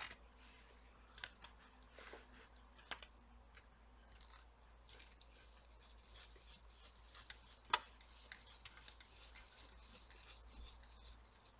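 Faint scraping and light clicks of a small precision screwdriver turning a screw in a laptop's hinge area. Two sharper clicks stand out, about three seconds in and near eight seconds, and a faint scratchy scraping runs through the second half.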